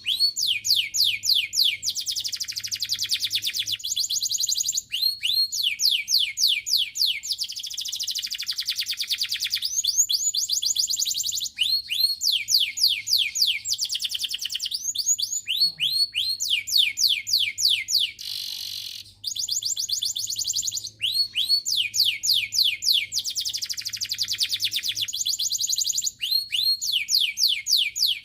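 Domestic canary singing: fast rolling trills of rapid upward-sweeping notes, in phrases a few seconds long with short breaks between them.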